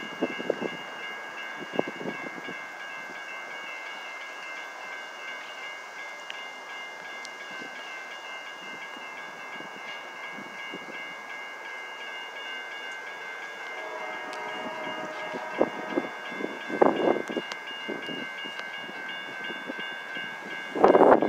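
Railroad grade-crossing warning bell ringing steadily, with a distant locomotive air horn sounding from about two thirds of the way in as the train approaches. A few loud bursts of noise come near the end.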